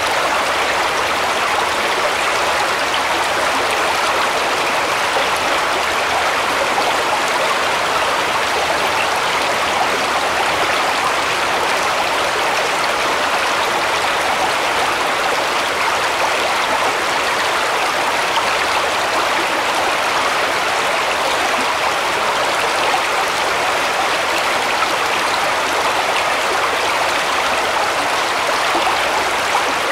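Shallow brook rippling over stones, a steady, even rush of water with no breaks.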